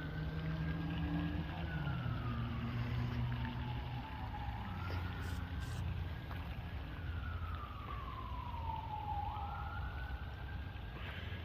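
Emergency vehicle siren on a wail pattern, its pitch rising quickly and sliding slowly down again about every four to five seconds, over a steady low rumble.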